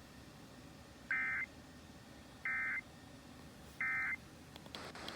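Three short bursts of Emergency Alert System digital data tones, each a fraction of a second and about a second and a half apart. This is the end-of-message code that closes a NOAA Weather Radio warning broadcast.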